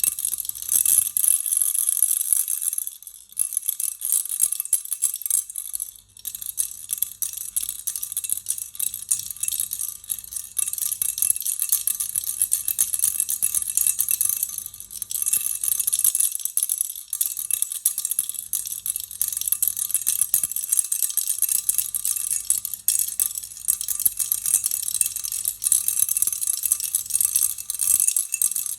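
Baby rattle shaken continuously: a dense, high-pitched clatter of small pellets, broken by brief pauses about three and six seconds in and again near the end.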